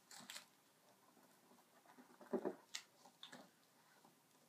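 Faint, scattered handling noises from an iPad's cardboard box being opened: light rustles, taps and clicks, with a louder brief rub about halfway through.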